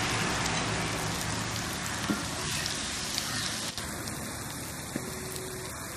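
Pirandai (veldt grape) stems, shallots, garlic and dried chillies sizzling in hot oil in a heavy pot, with a few light clicks of a metal spatula stirring them. The sizzle slowly dies down as the pot sits off the heat.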